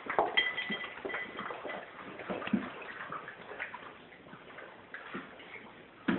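Golden retriever puppies lapping water from a bowl and scampering about, their claws clicking and tapping irregularly on a hard tile floor.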